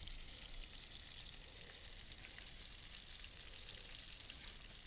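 Faint outdoor ambience by a lake: a steady soft hiss with scattered light ticks.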